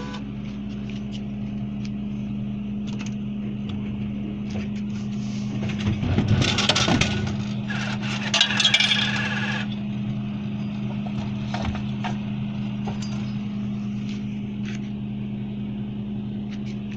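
Royal Vendors RVCC 550-6 bottle vending machine humming steadily. About six seconds in, a 20 oz plastic bottle of soda drops into the delivery bin with a loud clatter. A couple of seconds later it is scraped and rattled out of the bin.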